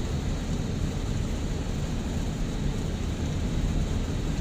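Steady road and tyre rumble of a car driving on a highway, heard from inside the cabin.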